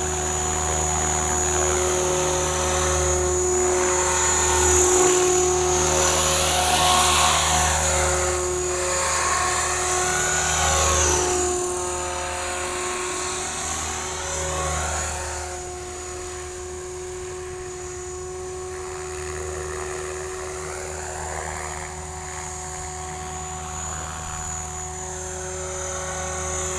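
RJX Vectron 520 radio-controlled helicopter in flight: a steady whine from motor and rotor blades over a low rotor beat, sweeping up and down in pitch as it moves about. It is louder in the first half and somewhat quieter from about halfway through.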